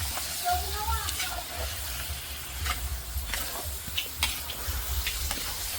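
Duck curry sizzling in a pot as it is stirred, with scattered clicks of the spoon against the pot.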